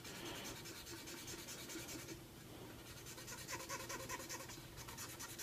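Faint, irregular scratching of a cotton swab tipped with WD-40 being rubbed over black plastic.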